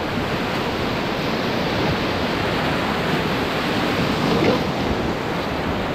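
River rapids: a steady rush of churning whitewater and breaking waves, heard from a canoe running through them.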